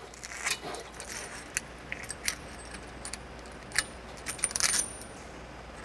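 Light metallic clinks and rattles of a faucet's metal mounting collar and metal washer being worked off its threaded shank and over the braided supply lines, with a few brief ringing chinks about four to five seconds in.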